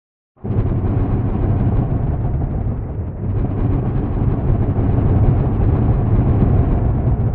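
Thunder rumbling: a loud, low rumble starts abruptly about half a second in and rolls on, easing briefly about three seconds in before swelling again.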